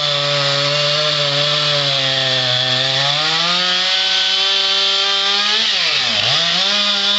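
Two-stroke chainsaw running at high throttle while cutting wood, its pitch wavering and climbing, then sagging sharply about six seconds in as the chain bogs in the cut before revving back up.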